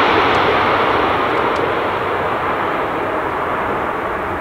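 Twin-engine jet airliner on landing approach passing low overhead, its engine noise fading steadily as it moves away toward the runway.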